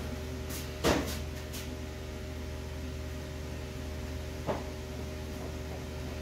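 Steady hum of kitchen equipment, with one sharp knock about a second in and a lighter knock past the middle.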